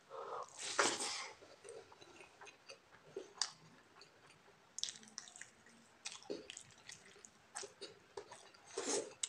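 Close-up eating with the fingers: wet chewing of rice and fried chicken wing, with scattered short clicks and squelches and two louder bursts, one about a second in and one near the end.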